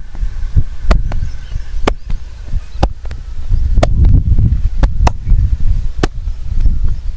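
Hands working over a person's head and back in a massage: low thuds of the strokes and pounding, with sharp clicks about once a second.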